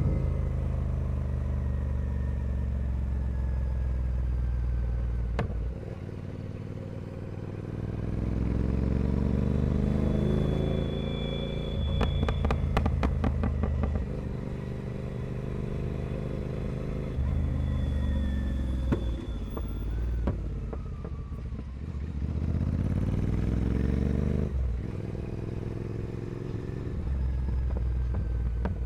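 Royal Enfield Continental GT 650's parallel-twin engine through a full 2-into-1 carbon racing exhaust, under way: the revs climb and fall again several times as the bike accelerates and eases off. A quick string of sharp cracks comes about halfway through.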